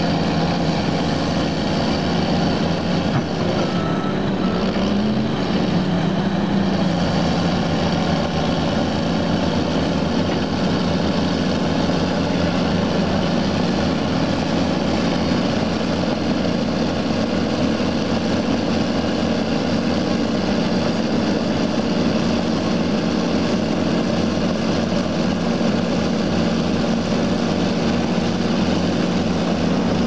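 Heavy diesel engines of a Cat D6R bulldozer and a Cat 320D excavator running together in a steady, unbroken drone.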